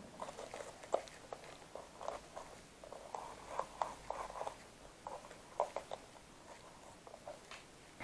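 Wiring harness being handled: plastic-sheathed wires and connectors rustling, with irregular small clicks and knocks, busiest in the middle few seconds.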